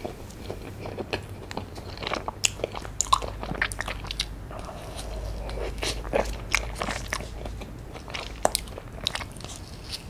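Close-miked mouth sounds of eating strawberry soft-serve ice cream from a cup: chewing with many sharp wet clicks and smacks, then a fresh bite near the end.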